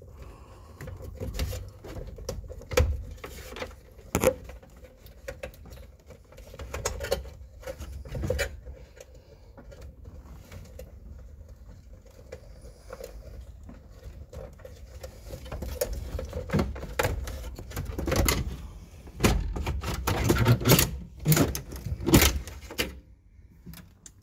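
Irregular plastic clicks, knocks and rustling as hands work behind a car's dashboard, reaching in to unplug the wiring connectors on the climate control. The knocks come thicker and louder in the last third.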